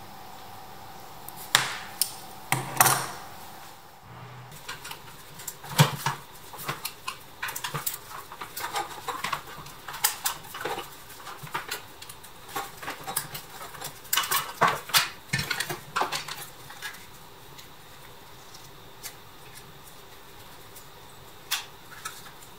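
Pressed-steel parts of a vintage Tonka toy tractor clinking, knocking and rattling as they are handled and taken apart by hand and with tools. The irregular sharp knocks run for the first sixteen seconds or so, then it goes mostly quiet, with a single clink near the end.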